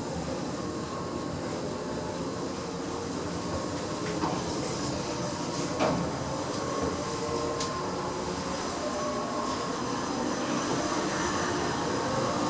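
Passenger lift car travelling between floors after its doors have closed: a steady rumble of the car in motion, with a few short clicks about four and six seconds in.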